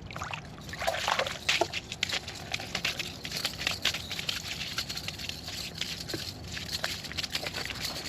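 Water sloshing and trickling, with dense irregular crackling throughout and a louder stretch about one to two seconds in.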